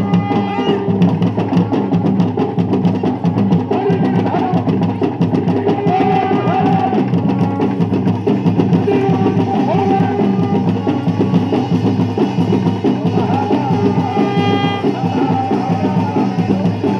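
Dhol drumming for a Garhwali jagar ritual dance: fast, steady, unbroken strokes, with other voices or instruments faintly over them.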